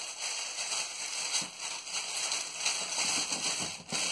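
Rustling and crinkling of black wrapping being handled and opened by hand, with a few small knocks from the cardboard box and the wrapped items.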